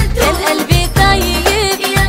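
Arabic pop song: a singer's voice weaving an ornamented line over bass and a steady beat.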